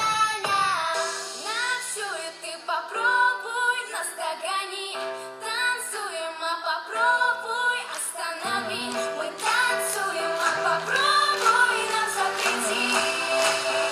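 A song sung over backing music, with a female voice carrying the melody.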